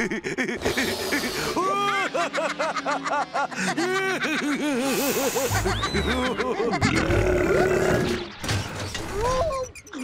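Cartoon score and comic sound effects: bouncing, rising-and-falling pitched notes, then a noisy crash-like burst about five seconds in, heavy low noise for a couple of seconds, and a falling glide.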